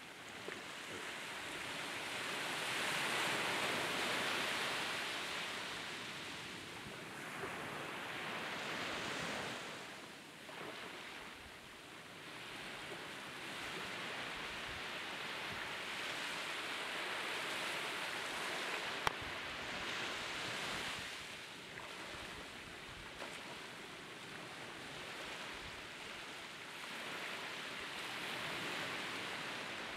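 Small waves breaking and washing up a sandy beach. The surf's hiss swells and eases every few seconds, with one brief sharp click about two-thirds of the way through.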